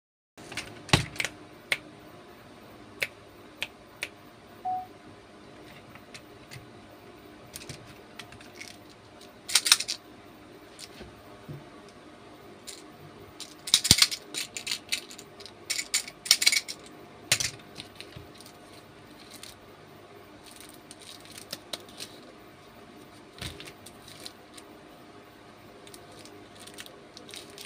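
Hands handling packaged candies and plastic candy toys: scattered clicks and taps of plastic, with bursts of rattling and crinkling about ten seconds in and again from about fourteen to seventeen seconds, as a plastic toy bicycle filled with candy gems is shaken and turned in the hands.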